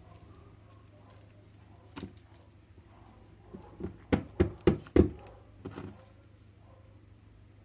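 Slime being squeezed and poked by hand, giving a quick run of sharp pops about a third of a second apart near the middle, with a single smaller pop earlier.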